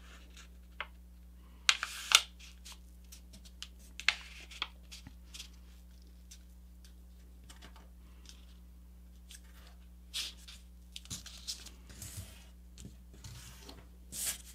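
A square sheet of paper rustling and crinkling as it is folded in half corner to corner and the crease is pressed and smoothed flat by hand. Short, scattered rustles with quiet gaps between them, loudest about two seconds in.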